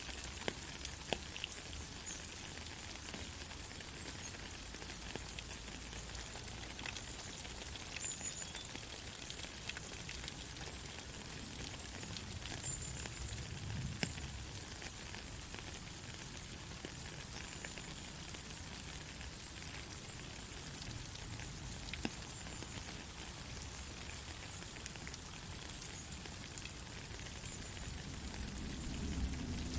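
Steady rain falling, an even hiss with scattered faint drip ticks; a low rumble swells in near the end.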